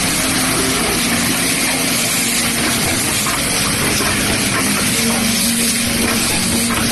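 Automatic cap assembly machine running: a steady mechanical din from its vibratory bowl feeder and assembly stations, with a constant low hum.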